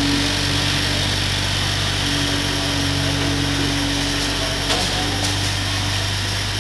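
A running engine or machine gives a steady low mechanical hum, with a couple of faint clicks about five seconds in.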